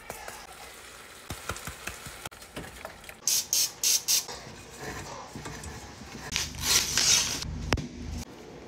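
A can of refrigerated biscuit dough being handled and opened: several quick rustling, tearing rips of its paper wrapper, then a sharp click near the end.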